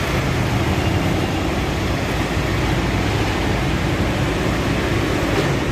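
Steady, even drone of a multistorey car park: a low machine and engine hum under a wash of noise.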